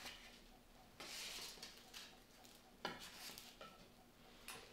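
Faint scraping and rustling of a spatula sliding baked phyllo pastries onto a serving platter, with a couple of light clicks of the spatula on the plate.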